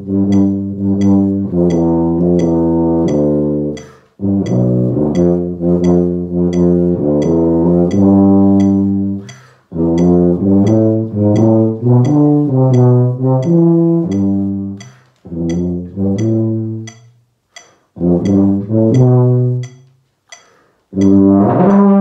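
Solo B-flat tuba playing phrases of short detached notes and longer held notes, broken by brief rests for breath. Under it a metronome clicks steadily, about three ticks every two seconds.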